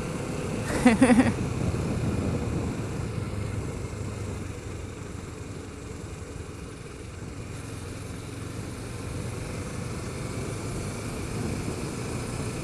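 2008 Kawasaki Ninja 650R's parallel-twin engine running under way, with road and wind noise. It makes a steady drone that eases off around the middle and builds again toward the end.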